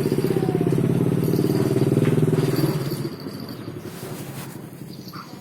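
A small engine running close by with a fast, even pulse, which drops away sharply about three seconds in and keeps fading.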